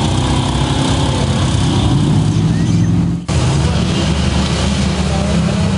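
A lifted pickup on big mud tires, its engine revving hard as the tires spin and churn through deep mud, the revs rising about two seconds in. A little over three seconds in, the sound cuts abruptly to another vehicle's engine running under load as it pushes through thick mud.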